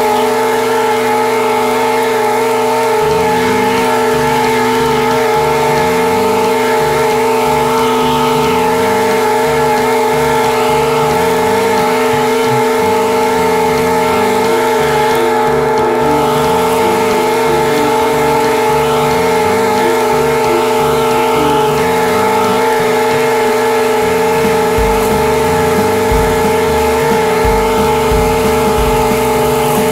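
Commercial lawn mower engine running steadily at one constant speed while mowing grass, heard close up from just above the engine.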